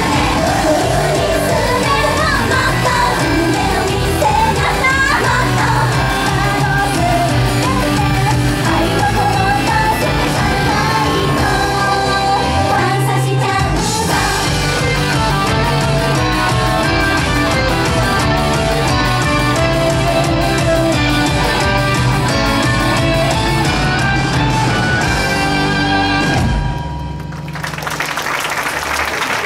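Upbeat idol-pop song sung live by a group of female singers into microphones over loud amplified music. The song ends about 27 seconds in and the audience starts cheering and clapping.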